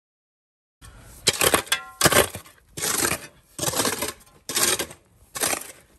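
Steel spade driven into loose MOT type 1 crushed-stone sub-base, crunching and scraping through the gravel in six strokes, about one a second.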